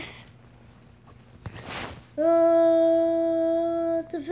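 A girl's voice holding one long, steady sung note for nearly two seconds, starting about halfway in, then breaking into another note at the end. A brief hiss comes just before the note.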